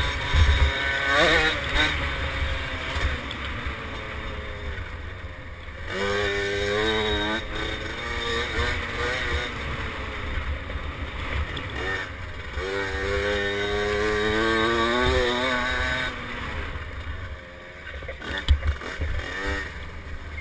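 Small two-stroke engine of a KTM 50 SX mini dirt bike revving, its pitch climbing and holding in two long pulls, with a shorter rise at the start, over wind rumble on the microphone.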